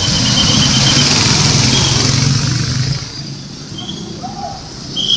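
A large bus passing close by: a steady engine drone under a loud rushing noise, dropping away about three seconds in, with a few brief high squeaks.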